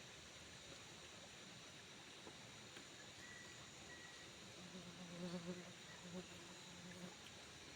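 Near-silent background hiss, with a faint low buzz of a flying insect passing the microphone for about two and a half seconds, starting about four and a half seconds in.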